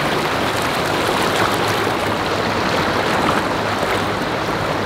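Shallow, rocky river rushing over stones: a steady, even sound of fast-flowing water.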